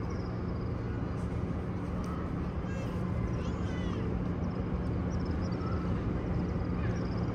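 Ambience of a very large congregation holding still in silent prayer, with soft murmuring, a steady low hum and birds chirping now and then.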